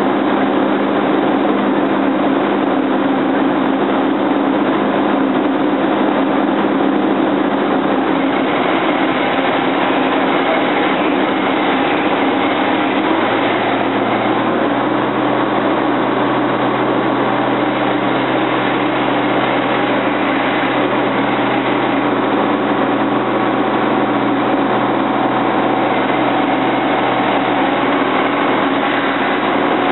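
Seismic vibrator truck's engine running close by. About ten seconds in, its low note climbs a little and then holds steady at the higher pitch.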